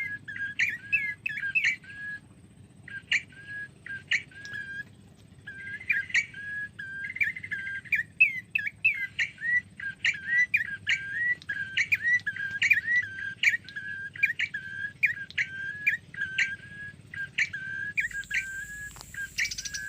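Small songbird chirping: a short, quick call repeated about twice a second, with a few brief pauses.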